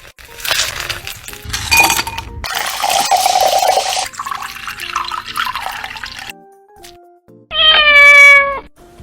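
A cat meowing once, one long call near the end that falls slightly in pitch. Before it come several seconds of noise, over background music.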